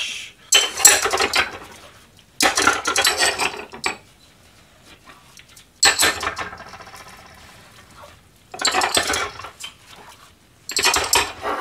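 Small ceramic bowls being hand-washed at a stainless steel sink: bursts of clinking and scrubbing as the bowls are handled. About six seconds in, a bowl is knocked and rings out for a couple of seconds.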